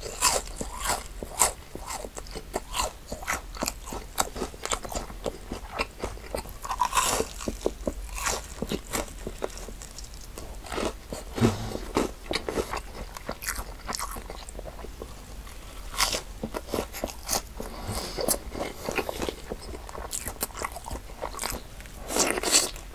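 Crunching and chewing of Korean deep-fried squid (ojingeo twigim) in a thick, crispy batter: a steady run of crisp crunches with a few louder bites now and then, between stretches of chewing the chewy squid inside.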